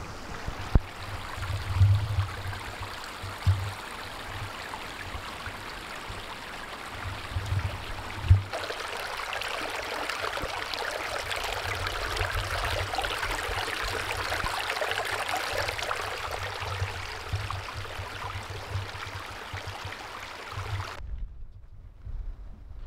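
A small brook running over rocks, a steady rushing that swells about eight seconds in and cuts off near the end. Before that come low thumps and rumble on the microphone.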